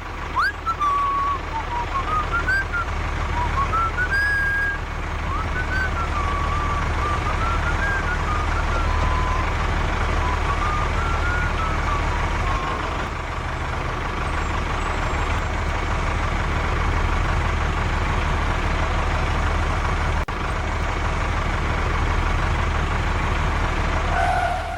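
Steady low rumble of a running truck engine. Over the first half a thin wavering whistle-like tone rises and falls above it.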